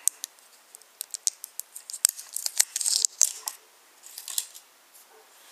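Crinkling and sharp clicks of a plastic wrapper being picked at and peeled off a small alkaline battery between the fingers, in irregular bursts, the loudest about two to three seconds in.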